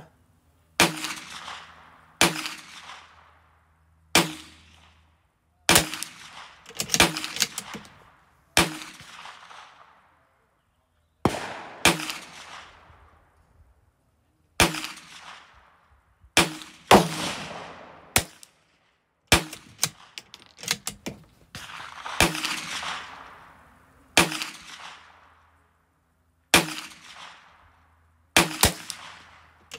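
Gunshots on a shooting range: sharp cracks with echoing tails, about one every one to two seconds, some in quick pairs. They come from .22 LR rifle fire, including a Bergara B14R bolt-action rifle shooting SK Rifle Match; the shots come faster than one bolt-action rifle could fire, so not all are from that rifle.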